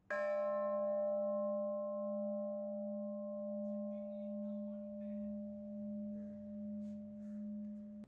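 A cast bronze bell struck once, ringing with a strong low hum and several higher overtones. The tone fades slowly and pulses gently in loudness as it dies away.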